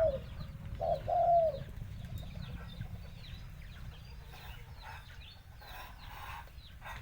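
Dove cooing: a few short coo notes in the first second and a half, then faint high chirping of small birds over a low rumble.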